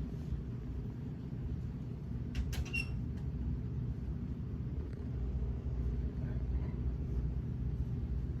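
42-inch Gulf Coast Mini Breeze ceiling fan running: a steady low hum and rush of air. A brief high chirp with a couple of clicks comes about two and a half seconds in.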